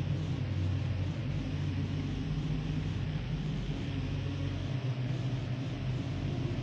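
Dark ambient industrial noise drone: a steady low rumbling hum under an even wash of hiss, with no beat or melody.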